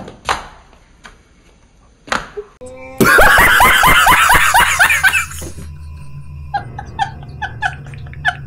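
A few faint knocks, then from about three seconds in a man laughing hysterically, loud and high, breaking after a couple of seconds into shorter, evenly spaced laughs.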